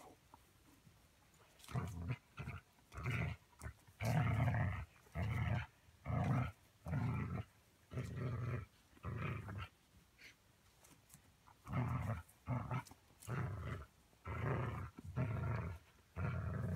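Dog play-growling in a run of short repeated bursts while tugging on a rope toy, with a pause of a couple of seconds about halfway through.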